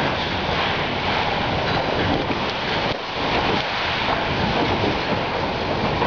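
Wind of about 90 mph buffeting a 40 x 80 clear-span structure tent, heard from inside: a loud, steady rushing rumble of the wind on the fabric roof and walls, easing briefly about three seconds in.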